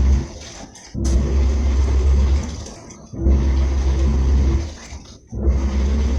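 Washing machine in its wash cycle: the motor turns the drum in runs of about a second and a half, with short pauses between, three times, each run a loud low hum.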